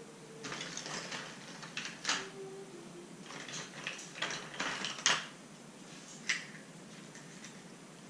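Hollow plastic Easter eggs clattering and clicking against one another as a hand rummages through a heap of them, with a few sharper clicks. The rattling runs from about half a second in to about five seconds, and one last click follows about a second later.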